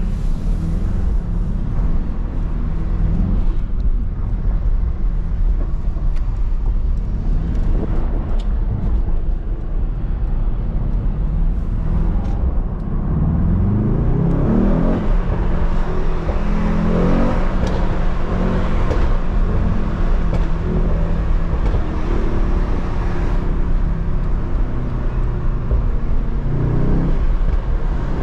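Mercedes-AMG GT63 S twin-turbo V8 and road noise heard from inside the cabin while driving, the engine rising in pitch as it accelerates about halfway through, pulling through more revs a few seconds later, and rising again briefly near the end.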